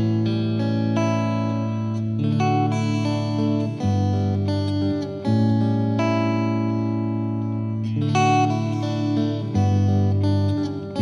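Slow instrumental guitar music: plucked notes ringing over sustained bass notes, with the bass changing a few times.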